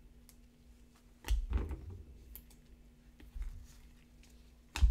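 Light plastic clicks and two sharper knocks, about a second in and near the end, from sleeved trading cards being handled and set down on a table.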